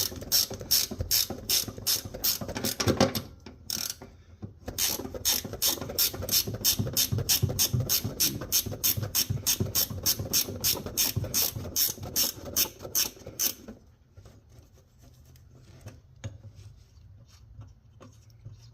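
Ratcheting wrench clicking steadily, about four clicks a second, as it backs a nut off a seat-bracket stud. The clicks stop briefly about 3 s in, resume, and stop for good about 14 s in, leaving faint handling sounds.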